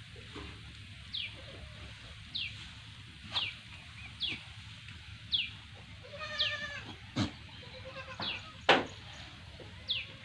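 Black Bengal goat bleating once, a wavering call about six seconds in, with a fainter call shortly after. Behind it a bird gives a short falling chirp about once a second, and there are a couple of sharp knocks.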